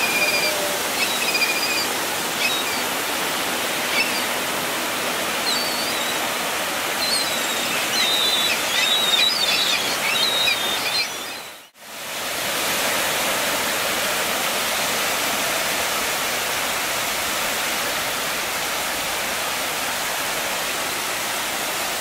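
Steady wash of ocean surf and wind on a beach, with scattered short, high bird calls over roughly the first half. The sound fades out briefly about halfway through and fades back in to the surf alone.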